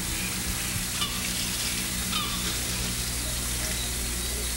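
Steady hiss with a low hum underneath, and no distinct event; only a couple of faint brief sounds about one and two seconds in.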